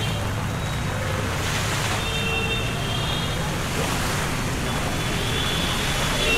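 Steady rain falling onto standing floodwater in a street, an even hiss with no break. A faint high tone sounds briefly about two seconds in.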